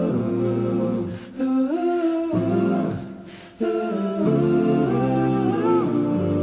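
Background music: an a cappella vocal group humming sustained chords in close harmony, without words, dipping briefly about a second in and again near the middle.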